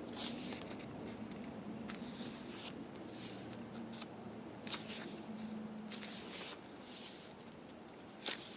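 Pages of a photo booklet being turned and handled: a series of short, soft paper swishes and rubs at irregular intervals, over a faint steady hum.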